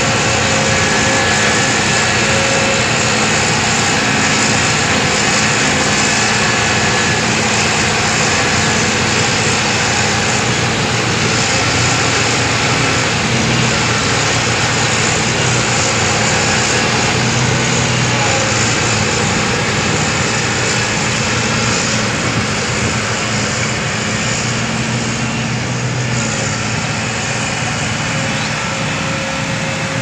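Hitachi Zaxis hydraulic excavator running under load, its diesel engine and hydraulics droning steadily as it tracks and turns by a dirt pile. The sound eases off a little near the end.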